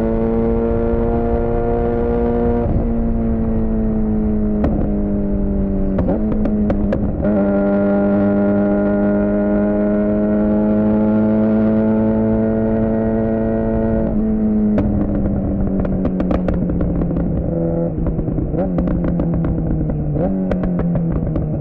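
2007 Suzuki GSX-R600's inline-four through a Yoshimura R11 exhaust, ridden at steady revs with a few short dips in pitch. In the last third the revs sink gradually, with scattered sharp ticks over the engine note.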